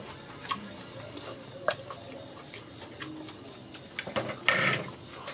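Metal fork clicking against a plate a few times, then a louder, longer scrape across it about four and a half seconds in.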